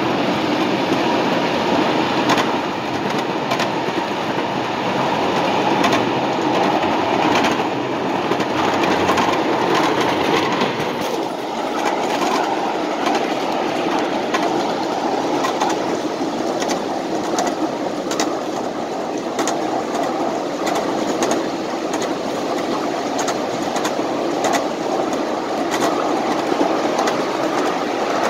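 Empty ridable-scale coal hopper cars rolling along a model railroad track: a steady wheel rumble with the clickety-clack of wheels over rail joints, the clicks coming more often in the second half.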